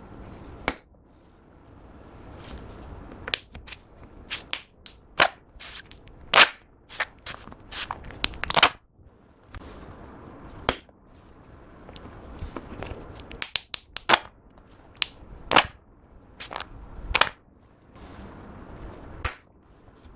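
Clear slime being squished and folded by hand as glitter glue is mixed in, with irregular sharp pops and clicks as trapped air bursts, some coming in quick clusters.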